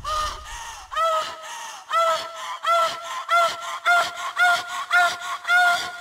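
A series of nasal, goose-like honks that come faster and faster. Each honk rises sharply in pitch at its start and then holds.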